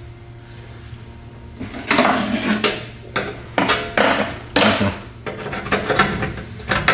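Pliers clipping and working at the metal lip under a pickup's front bumper: a series of sharp metallic clicks and scrapes beginning a couple of seconds in.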